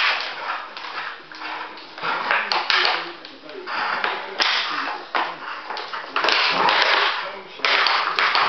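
A Labrador and a wolf play-growling and tussling in a tug-of-war over a plastic bottle, in irregular rough bursts with sharp crackles of plastic.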